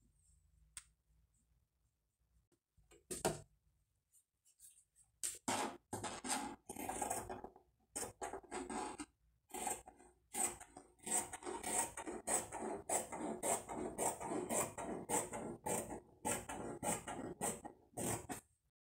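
Fabric shears cutting through cloth along a marked curve: a run of repeated crisp snips, each a crunch of the blades through fabric closing with a click, starting about five seconds in after a single snip near three seconds.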